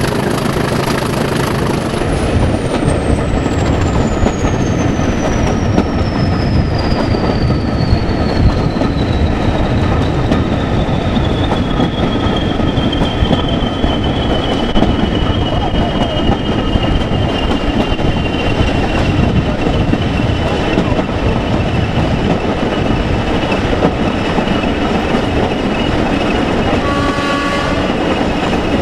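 Class 20 diesel locomotive running along the line, heard from the cab window: engine and rail noise, with the turbocharger's high whistle winding down, falling steadily in pitch from about two seconds in and then holding. Near the end the locomotive's horn sounds.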